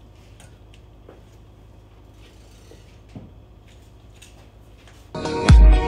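Faint scattered metallic clicks and ticks of hand tools adjusting valve lash on a Honda B20 VTEC engine's valve train, over a low steady hum. About five seconds in, loud electronic dance music with a heavy beat starts.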